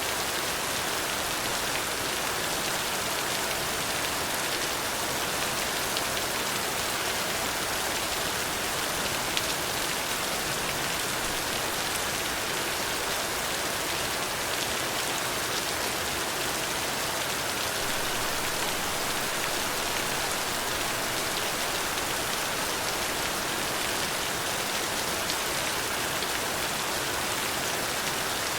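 Steady rain falling, an even hiss of many drops with a few separate drop ticks.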